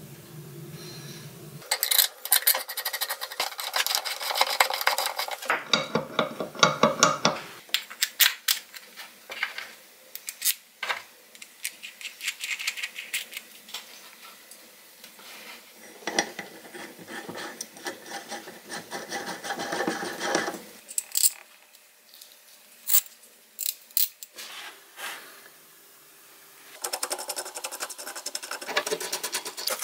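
Hand scraping and rasping on a workpiece in irregular bursts of strokes, with pauses between them. A few sharp clinks come in the middle.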